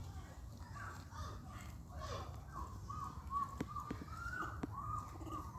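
Young monkeys giving a run of short, high calls that rise and fall in pitch, one after another, with a few sharp clicks among them.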